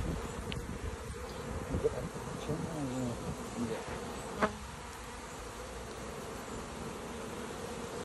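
Honey bee swarm buzzing: a dense, steady hum from thousands of bees clustered on a box, with single bees passing close, their pitch bending, a few seconds in. A short sharp click about four and a half seconds in.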